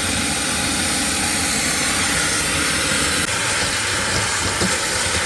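A cheap Power Fist compressed-air vacuum gun running with a loud, steady hiss and rush of air while it sucks dirt out of a car floor pan. Its bag lets a lot of the dirt blow back out.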